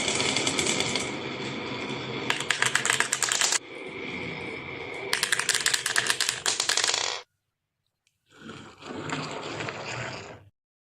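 Marbles rolling and clattering down a wooden marble run track: a steady rolling rattle broken by runs of rapid clicking. It stops abruptly about seven seconds in, and after a second's silence another run of rattling follows.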